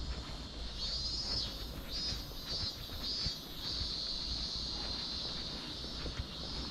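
Cicadas buzzing in a high, sizzling drone that pulses on and off about twice a second for a couple of seconds, then holds steady, over a low background rumble.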